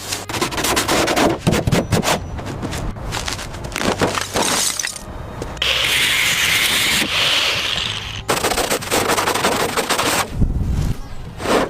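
Rapid clattering knocks and cracks, with a steady hiss from about five and a half to eight seconds in.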